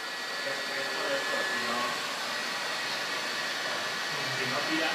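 Neo 140 UV inkjet ticket printer running: a steady whirring, fan-like noise with a thin, steady high whine, with faint voices in the background.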